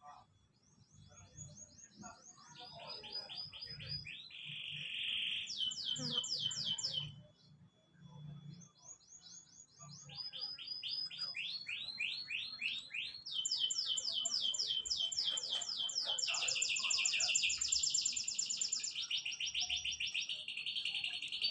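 A small songbird singing in rapid trills, phrases of quickly repeated notes that jump to a new pitch from phrase to phrase, with a short pause partway through and louder, denser singing in the second half.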